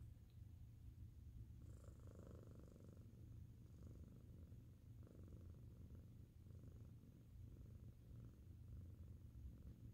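Domestic cat purring faintly and steadily, the purr swelling about once a second with its breathing.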